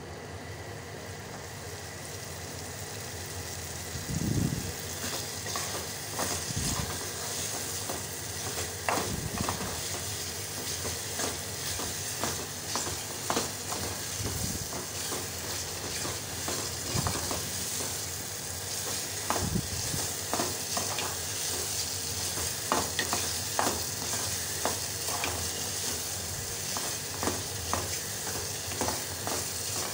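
Capsicum and tomato masala sizzling in a pan over high heat while a metal spoon stirs it, with frequent short scrapes and clicks of the spoon against the pan. The sizzle is the leftover water cooking off as the masala is dry-fried.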